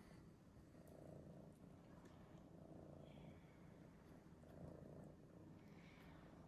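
Domestic cat purring faintly, the purr swelling with each breath about every two seconds.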